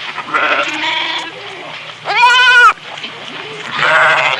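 An animal calling three times, each call a wavering, pitched cry, the loudest and clearest about two seconds in.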